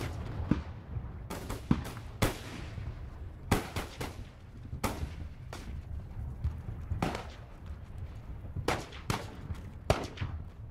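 Scattered single rifle shots at irregular intervals, about a dozen sharp cracks, each echoing briefly, over a steady low battle rumble.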